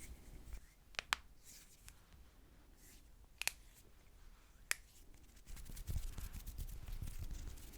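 ASMR tapping sounds: a few sharp, separate clicks spread over the first five seconds, then about two seconds of denser rustling and light tapping.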